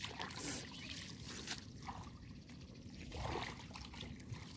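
Shallow pond water splashing and trickling in a few irregular bursts as hands scoop and sort through mud and weed caught in a mesh net.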